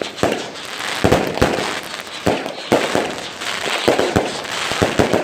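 Fireworks going off: about a dozen sharp bangs at irregular intervals over continuous crackling.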